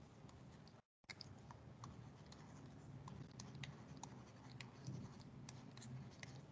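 Faint tapping and scratching of a stylus on a tablet screen during handwriting: scattered short ticks over low background noise. The sound cuts out to dead silence for a moment about a second in.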